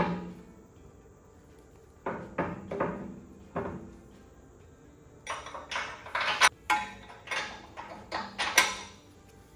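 Metal clanks and clinks of tools, bolts and a steel control arm being handled and fitted to a truck chassis: a few knocks about two seconds in, then a busier run of clatter from about five seconds.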